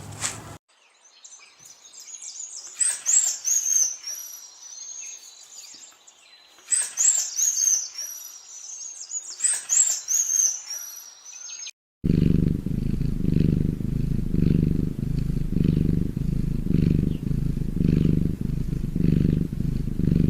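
Bursts of very high, gliding squeaks from a small animal, three clusters in all, then an abrupt switch about twelve seconds in to a domestic cat purring in a steady, even rhythm.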